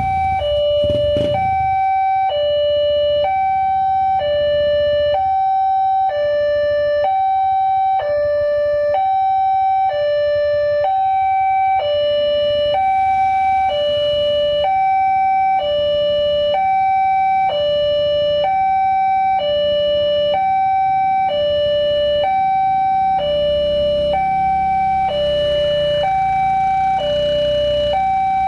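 Indonesian railway level-crossing warning alarm sounding with the barriers down: an electronic two-tone signal alternating steadily between a higher and a lower note. It warns that a train is approaching. Low motorcycle engines idle underneath.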